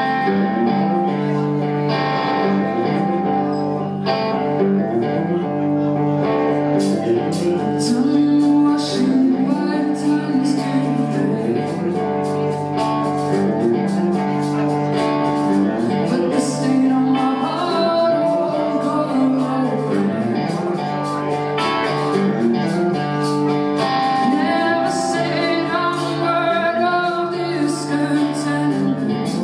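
A song played live: guitar with a woman singing over it.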